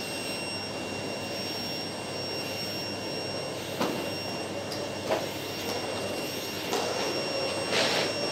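Canister vacuum cleaner running steadily with a high-pitched motor whine as its floor head is pushed over carpet. A few short knocks come in the second half, the loudest near the end.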